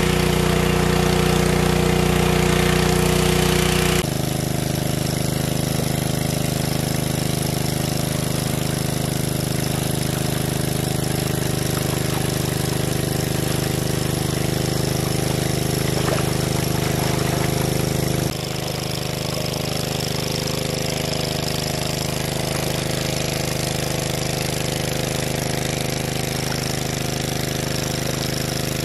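The 500 cc engine of a large-capacity water pump running steadily, its tone shifting abruptly about four seconds in and again just past halfway.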